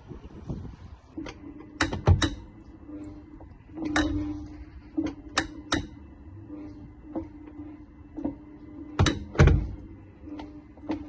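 Sharp clicks from the rear wheel of a 2023 VW ID.3, coming irregularly and several in close pairs, over a steady low hum. The clicking comes when drive torque reverses, and the owner takes it for play in the rear outer CV joint.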